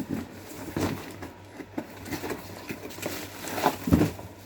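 Packaging rustling with scattered light clicks and knocks as a new electronic ignition distributor is unpacked by hand.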